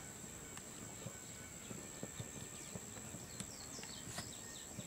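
Faint outdoor ambience at a grass football pitch: a steady high-pitched insect drone over a soft background hiss, with scattered light knocks and a few faint high chirps in the second half.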